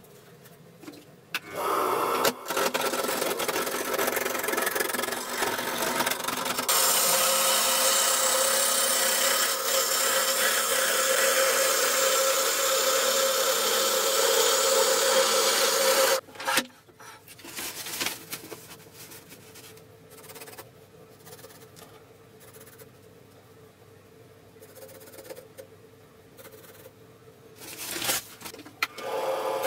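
Wood lathe spinning a square blank of old, partly rotten wood while a turning tool cuts it round: a loud, rough cutting noise for about fourteen seconds, over a steady hum from the lathe. The cutting then stops and the lathe runs on more quietly with light scraping, growing louder again near the end.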